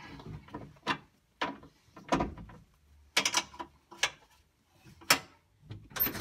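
Scattered metallic clicks and knocks of a ratchet wrench and hand working on the bolts inside a 1969 Camaro's bare door, adjusting the door glass forward. The clicks come about once a second, with a quick run of several a little after three seconds in.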